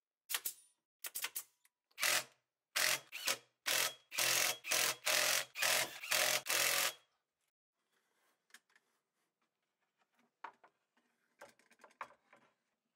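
Cordless screwdriver driving screws into plywood in a string of short bursts, about a dozen over some seven seconds, the later ones longer as screws seat. After that, faint clicks and rubbing of wooden parts being handled.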